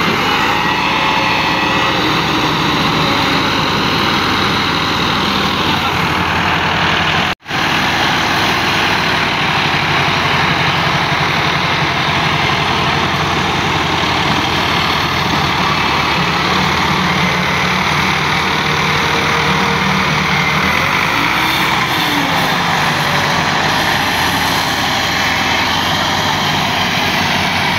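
Diesel tractor engines running hard under load as a Massey Ferguson 375 pushes a tractor and its loaded trolley that are stuck in wet ground. The sound cuts out for an instant about seven seconds in.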